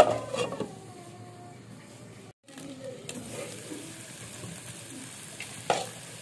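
A glass pan lid clinks against a frying pan and rings briefly, its tone falling as it fades. After a brief dropout, a thick masala of small fish sizzles faintly and steadily in the uncovered non-stick pan, with one sharper knock near the end.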